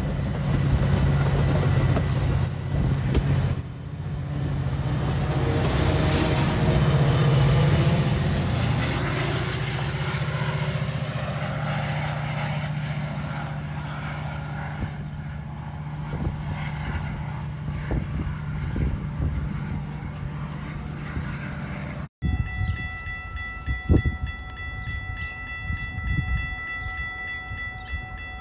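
Metra commuter train moving along the platform: bilevel cars rolling by with wheel and rail noise over the steady hum of the diesel locomotive, which is working hard at the rear of the train. The sound peaks, then slowly fades. After an abrupt cut near the end, a quieter background with steady ringing tones.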